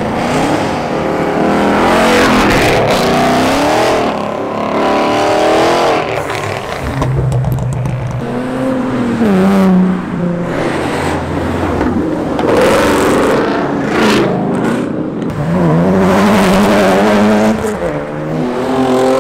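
A string of cars accelerating hard past one after another. Each engine revs up with a rising exhaust note, several times over.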